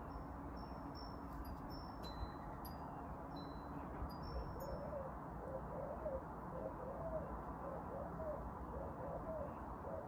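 High tinkling chime notes in the first few seconds, then a bird calling over and over, about two short calls a second, from about halfway through, over a steady low background hiss.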